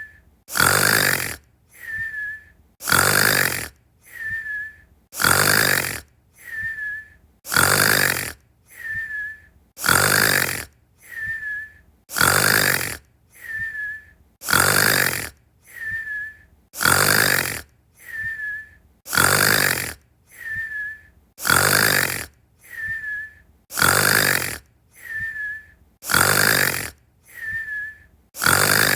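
Snoring that repeats at a perfectly even pace, about one breath cycle every two and a quarter seconds. Each cycle is a loud snore followed by a quieter breath with a thin whistle that dips slightly in pitch.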